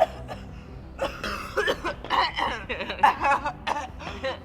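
A person making wordless voice sounds: coughs and chuckling, in a run of short bursts.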